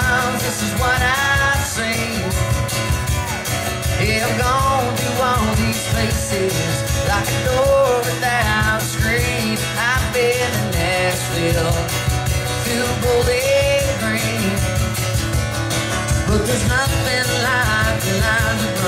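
Live country music from an acoustic duo: acoustic guitar playing under a singing voice whose melody rises and falls.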